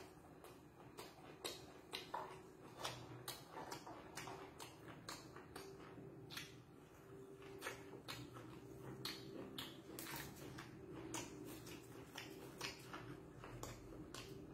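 Close-up eating sounds of a man chewing a mouthful of raw-beef koi salad with fresh herbs: irregular wet smacking clicks of the mouth and teeth, a few to several a second.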